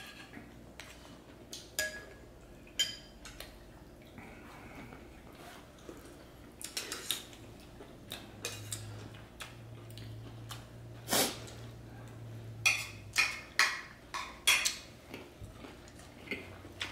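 Utensils clinking and tapping against plates and bowls while eating: scattered clinks, some with a short ring, getting more frequent and louder in the second half.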